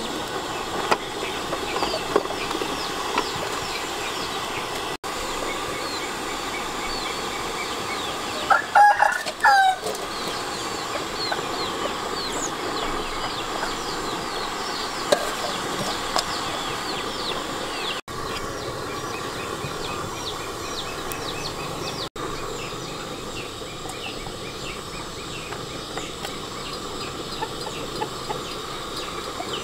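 A rooster crows once, loudly, about nine seconds in. Around it runs a constant bed of quick high bird chirps.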